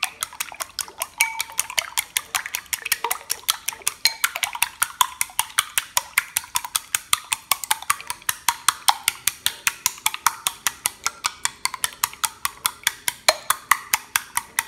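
Raw eggs being beaten with wooden chopsticks in a glass bowl: a rapid, even clicking of the chopsticks against the glass, about five strokes a second.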